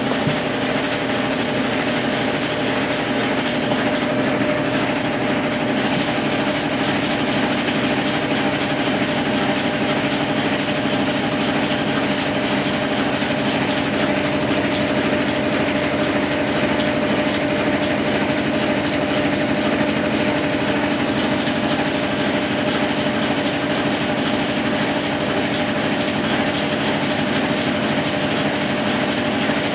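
Consul Facilite 10 kg top-loading washing machine in its wash stage, its motor driving a Brastemp BWL09 agitator through water and clothes. Steady churning with a constant hum.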